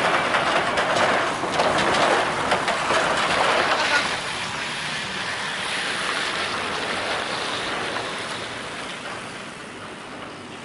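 Articulated lorry with a curtain-sided semi-trailer passing close by: tyre and road noise with clattering from the trailer, loudest for the first few seconds, then fading steadily as it drives away.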